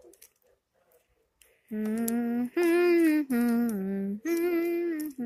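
A voice humming or singing a slow wordless tune as waiting filler, a run of held notes that starts about two seconds in after a near-silent pause.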